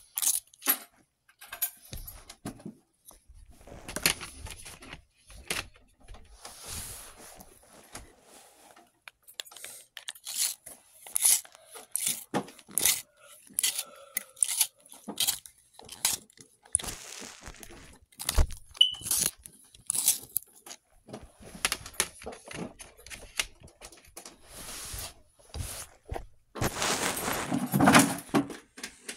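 Irregular clicks, taps and rustles of small objects being handled close to a phone, with a longer, louder rubbing and scraping burst near the end.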